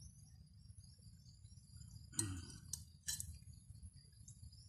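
Quiet outdoor ambience of insects chirping steadily in a high band, with a sudden knock about two seconds in and two sharp clicks soon after.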